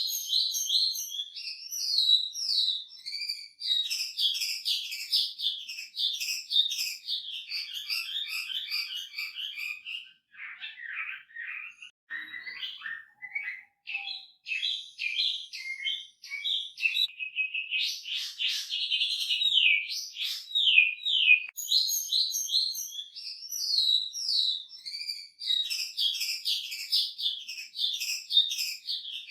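Hwamei (Chinese hwamei) singing a long, varied song of fast repeated notes and trills, loaded with phrases imitated from other birds. About ten seconds in the song thins to lower, scattered notes, then it picks up again with fast high runs.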